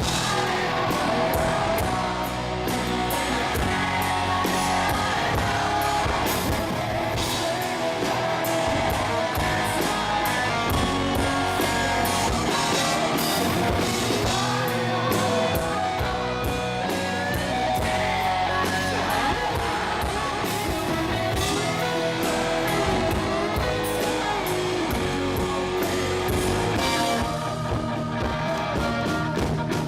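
Live rock band playing a song: steady drum hits under electric guitars, with singing.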